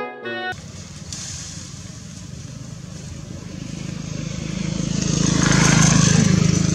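A motor vehicle's engine passing close by, growing louder to a peak near the end and then starting to fade.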